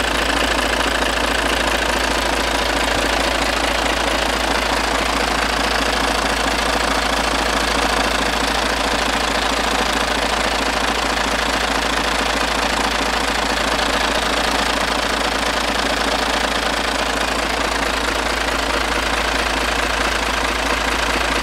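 Hino J08E straight-six turbodiesel truck engine idling steadily, heard up close in the open engine bay.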